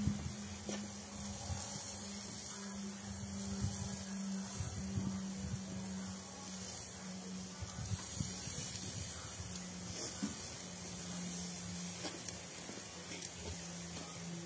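Meat sizzling on a charcoal barrel grill, with a few short clicks of metal tongs against the meat and grate as pieces are turned. A steady low hum runs underneath.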